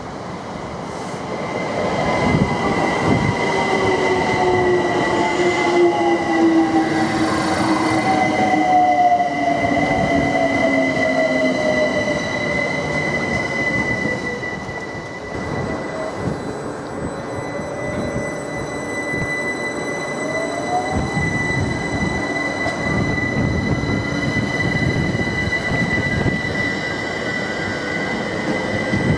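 London Overground Class 378 electric multiple units running past on the rails. Their motor whine slides down in pitch through the first half, and another whine rises in pitch about two-thirds of the way through. A steady high squeal and the rumble of the wheels run underneath.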